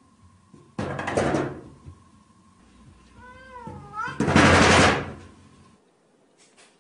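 Two loud bangs of a sliding door rattling in its frame as cats strike it from either side, about a second in and again about four and a half seconds in. Between them a cat gives one short meow that wavers in pitch.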